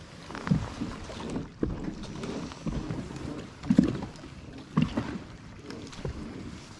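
Lake water lapping against the hull of a small fishing boat, in irregular low slaps about once a second over a steady rush of wind and water.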